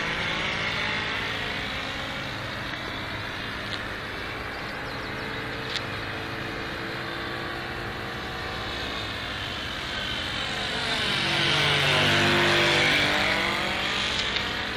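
Radio-controlled model airplane's engine buzzing in flight. Its pitch slides down as the plane moves away, then it grows louder and passes close about twelve seconds in, the pitch dropping as it goes by.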